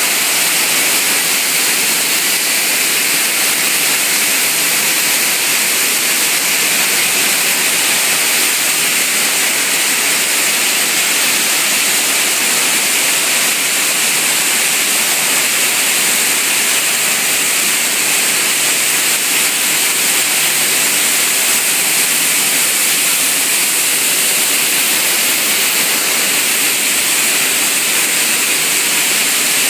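Waste plastic washing line running: a steady rush of water and machinery noise, even and unbroken.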